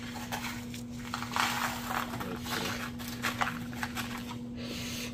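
Light clicks and short rustles from small hardware being handled and fitted at a car's radiator support, over a steady hum.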